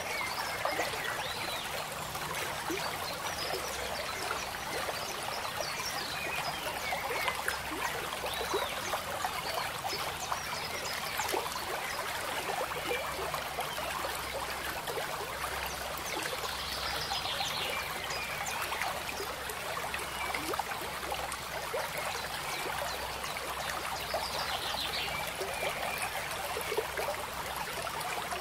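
Steady trickling of running water, like a small stream.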